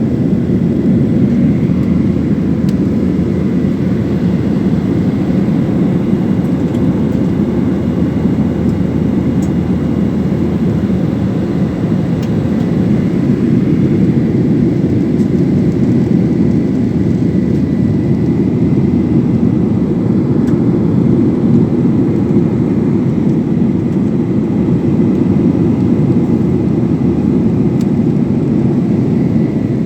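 Steady jet engine and airflow noise from a GOL Boeing 737 airliner, heard inside the passenger cabin: a loud, even low rumble with a faint thin whine above it, unchanging throughout.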